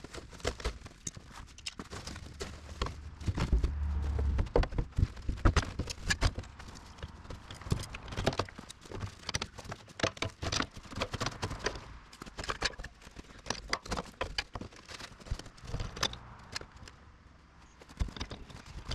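Irregular metal clanks and knocks as a truck's fuel tank is set into its frame brackets and fitted in place, with a heavier thump about four seconds in.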